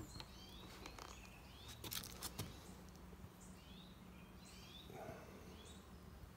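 Faint outdoor ambience: a bird chirping repeatedly in short rising notes over a steady low hum, with a few sharp clicks about two seconds in.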